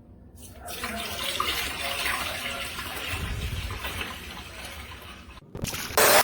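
Hoover PowerDash Pet+ compact carpet cleaner running over carpet, a steady watery hiss of spray and suction that starts about half a second in. It briefly drops out near the end, then comes back as a short loud burst before it cuts off.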